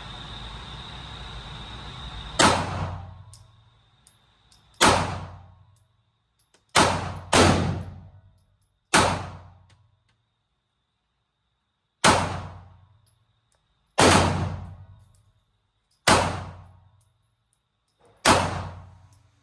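Glock 19X 9mm pistol fired nine times, slow single shots one to three seconds apart, with two in quick succession about seven seconds in. Each is a sharp crack with a short echoing tail in the enclosed range.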